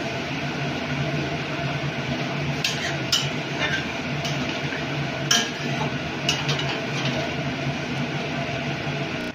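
A metal spatula stirring curry in an aluminium kadai, clinking and scraping against the pan about eight times, over a steady hiss.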